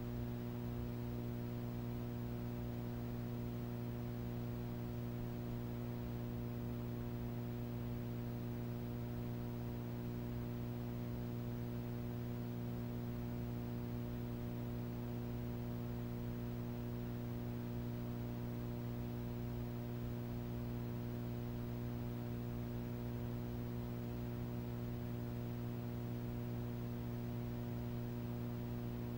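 Steady electrical mains hum, a low buzz with a stack of higher overtones over faint hiss, unchanging throughout.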